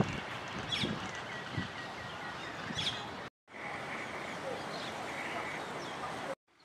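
Outdoor ambience of birds chirping and calling over a steady background hiss, with a quick run of repeated short notes about a second in. The sound drops out briefly twice, near the middle and near the end.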